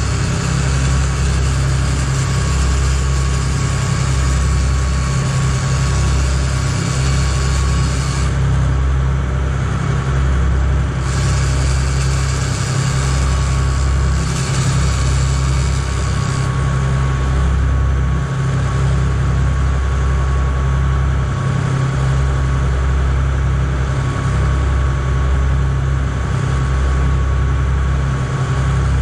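Fishing boat's engine running steadily with a constant low drone, and a steady rushing hiss over it.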